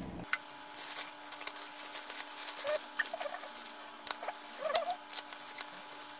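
Plastic packaging being handled: a plastic courier mailer and bubble wrap crinkling and rustling, with irregular crackles and a few small squeaks.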